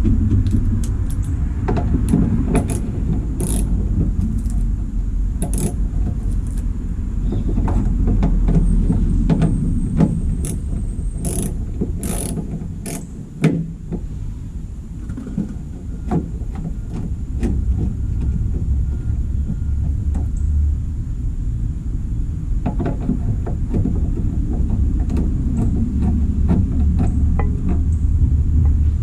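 Irregular clicks and knocks of hard plastic being handled: the 7443 LED brake light bulb and its socket being fitted into the minivan's tail light housing. The clicks are densest in the first half, over a steady low rumble.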